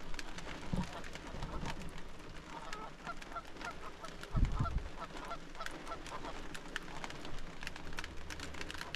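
Waterfowl on the pond calling in a rapid series of short honks, heard from inside a parked car. Light scattered taps run alongside, and one dull low thump comes about four and a half seconds in.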